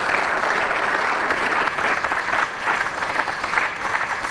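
Applause from the members of a parliamentary chamber: steady clapping from many hands after a point in a speech.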